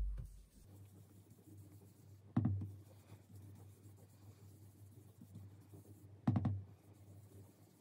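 Round bristle blending brush rubbing ink onto cardstock in circular strokes, a soft steady brushing on paper, with two brief louder knocks, about two and a half and six and a half seconds in.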